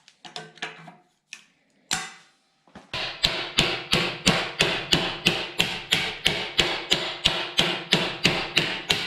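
Sheet-metal repair panel being bent with a hammer: a few loose clanks and knocks while it is handled, then from about three seconds in a steady run of hammer blows, about three a second, each with a short metallic ring.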